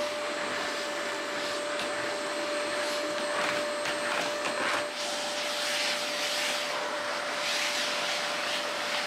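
Canister vacuum cleaner running, its motor holding one steady whine under a loud rushing hiss. The hiss swells and eases as the floor nozzle is pushed back and forth over a wooden floor.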